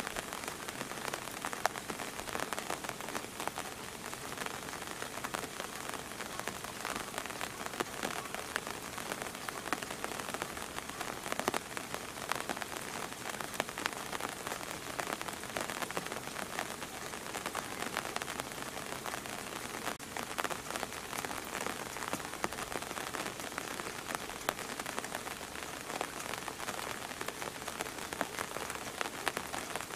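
Steady rain falling: a continuous hiss dotted with many small ticks of individual drops.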